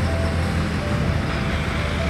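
Dump truck's diesel engine running with a steady low rumble while its raised bed tips out a load of dirt, with background music playing over it.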